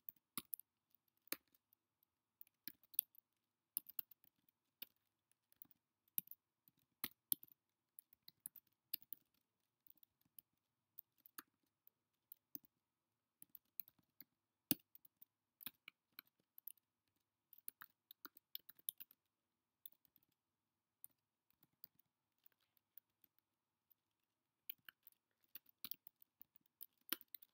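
Typing on a computer keyboard: short, sharp key clicks in irregular runs, with brief pauses between words.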